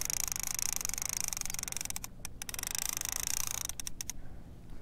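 Okuma Magda Pro line-counter trolling reel ratcheting in a rapid run of clicks as it is cranked against a hooked fish. The run breaks off for a moment about two seconds in, resumes, and ends in a few single clicks near the end.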